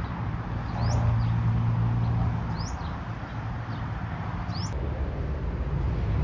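A bird giving a short, high, rising chirp, repeated about every two seconds, over a steady low rumble.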